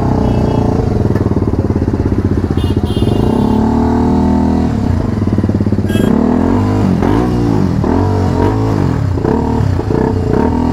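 BMW G 310 RR's single-cylinder engine running under way. The revs climb about two seconds in, then the throttle is blipped up and down several times in quick succession in the second half.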